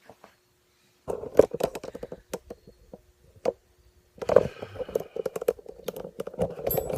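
Quick runs of light clicking and rattling as fork parts are handled on the bench, with a few single knocks in between.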